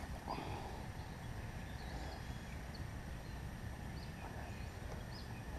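Quiet outdoor ambience: a steady low rumble with a few faint, short high chirps scattered through it.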